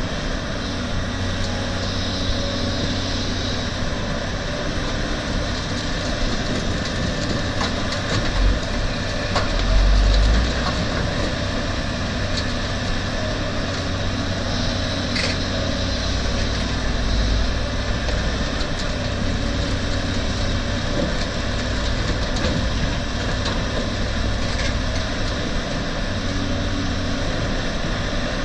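CAT 320D hydraulic excavator's diesel engine running steadily under load as it digs and swings, with the dump truck's diesel running alongside. A few low rumbling swells come about a third of the way in.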